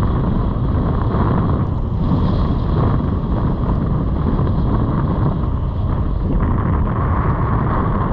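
Steady wind rumble on an action camera's microphone during a ski run down a groomed piste, with the skis running over the snow beneath it.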